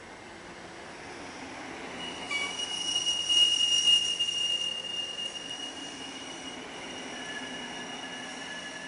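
MARC bilevel commuter coaches rolling slowly past on steel wheels with a rumble. A high-pitched metallic wheel squeal sets in about two seconds in, is loudest a second or two later, then eases, and a second, lower squeal tone comes in near the end.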